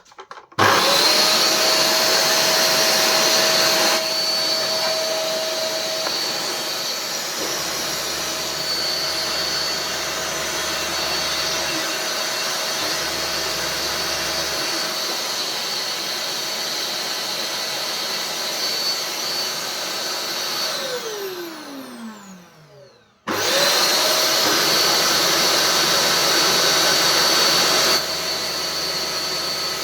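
Vax Mach Air upright vacuum cleaner switched on and running steadily with a high whine. It is being test-run after its brush bar was cleaned and refitted. About 21 seconds in it is switched off and the motor winds down in a falling pitch, then it is switched straight back on and runs again.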